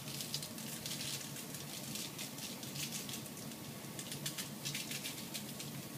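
Lemon pepper seasoning shaken from a spice shaker, the granules pattering in a quick, irregular stream of soft ticks onto salmon fillets and the paper beneath.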